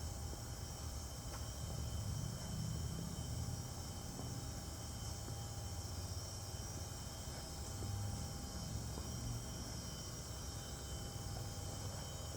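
Quiet background noise: a low steady rumble with a faint, steady high-pitched hiss over it.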